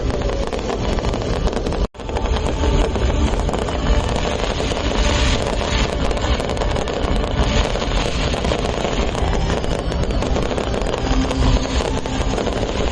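Fireworks going off in a dense, continuous barrage of crackling bursts over a low rumble, with wind buffeting the microphone. The sound cuts out completely for an instant about two seconds in.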